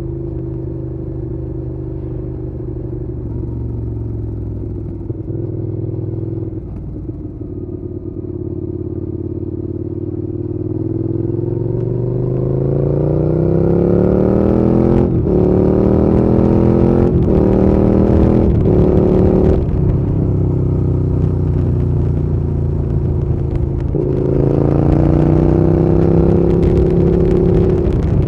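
Suzuki Gladius 650's 645 cc V-twin engine running steadily, then pulling hard with a climbing pitch that is cut by four quick breaks, like upshifts. It settles to a steady pitch, then climbs once more and holds.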